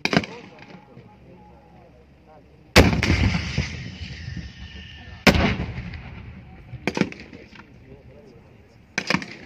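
Gunfire and explosive blasts in a live-fire battle demonstration: a sharp shot at the start, a loud blast about three seconds in that echoes for a couple of seconds, a second echoing blast a couple of seconds later, a single shot near seven seconds, then a quick string of shots at the end.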